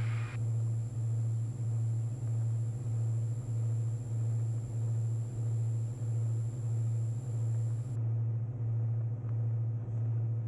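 Diamond DA42 Twinstar's two propeller engines at climb power, heard from inside the cockpit as a steady low drone that pulses about one and a half times a second.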